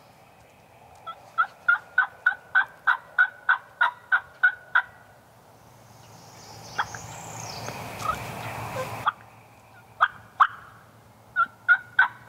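Turkey yelping: a run of about a dozen short, evenly spaced hen yelps at about three a second, then after a pause two single yelps and another quick run near the end.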